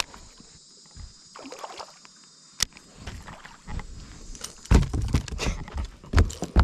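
A hooked largemouth bass being reeled in and swung aboard a bass boat. A sharp click about two and a half seconds in, then water disturbance and a run of heavy thumps and knocks, loudest in the second half, as the fish is landed and handled on the boat.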